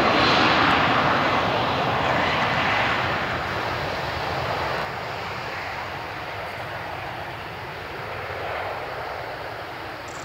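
Embraer E190 regional jet's twin GE CF34 turbofans at takeoff power as it rolls down a wet runway. The jet noise is loudest at first and fades steadily as the aircraft pulls away.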